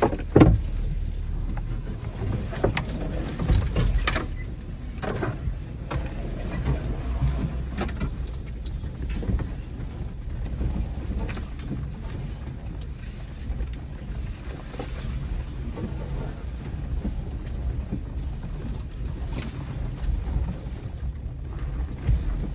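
A 4x4 crawling slowly along a rough wooded trail, heard from inside the cab: a steady low engine and drivetrain rumble with scattered knocks and scrapes as it jolts over the ground and brushes past branches. The loudest knock comes about half a second in.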